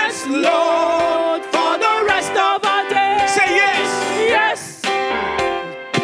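Church worship team singing a gospel praise song with keyboard accompaniment; the lead voice holds notes with a wavering vibrato.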